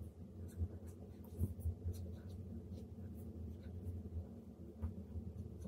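Scratchy stylus strokes on the screen of a Huion Kamvas Pro 19 pen display, short and irregular with the odd tap of the nib, over a steady low hum.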